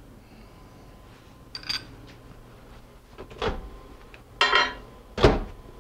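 Microwave oven door being handled: a few knocks and clunks from the latch and door as it is opened and shut, the loudest near the end.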